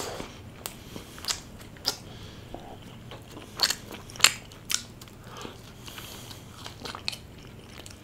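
Close-miked chewing and biting of a burger filled with fried chicken momos: a dozen or so crisp crunches at irregular intervals from the fried momo casing.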